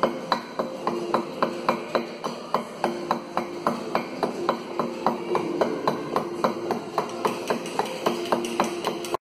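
A round white mallet striking a steel chisel cutting into Portland limestone, in a steady rhythm of about three sharp taps a second.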